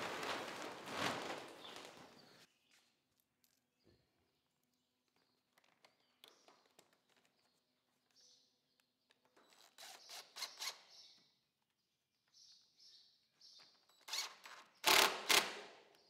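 Plastic tarp rustling and crinkling as it is pulled over a wooden frame, in loud noisy bursts that stop abruptly after a couple of seconds. Then scattered softer rustles and ticks, with a louder burst of rustling near the end.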